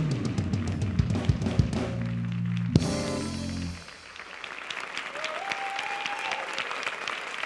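A jazz-funk band of tenor saxophone, keyboards, bass and drums plays its closing bars: a drum fill with cymbal hits, a final accent about three seconds in, and a held chord that stops a second later. An audience then breaks into applause that builds and carries on.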